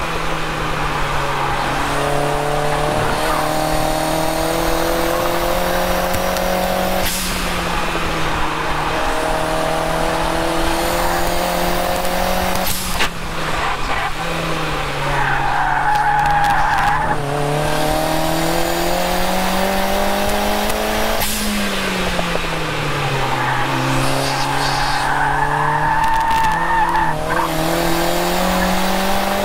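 Turbocharged Mazda MX-5's four-cylinder engine heard from inside the open cabin at full load on track: the revs climb, then drop at each gear change, several times over. A high tyre squeal comes in twice, through corners in the middle and near the end.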